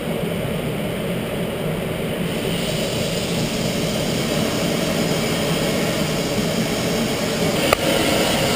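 Oxy-acetylene heating torch burning with a steady hiss as it heats a steel plate before welding; the hiss grows brighter and slightly louder about two and a half seconds in. A single sharp click sounds near the end.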